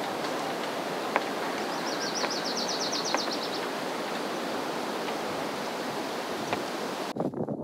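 A steady outdoor rushing noise with a few faint clicks. About one and a half seconds in, a bird sings a fast, high trill of repeated notes lasting about two seconds. Near the end the background changes abruptly.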